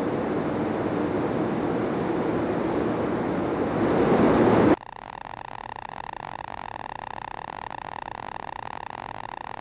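Light aircraft's Rotax engine and propeller in cruise flight, heard from outside the cabin as a steady engine and wind noise that swells briefly. About halfway through it cuts off suddenly to a quieter, muffled drone with a constant steady hum, as heard inside the cockpit.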